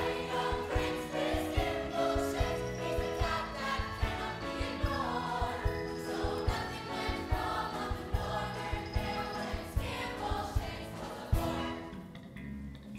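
Stage-musical ensemble singing as a chorus over band accompaniment with a steady beat of low drum hits, the music dropping back a little near the end.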